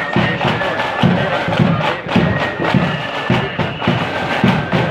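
Marching band music: a bass drum beating about twice a second under long held high melody notes.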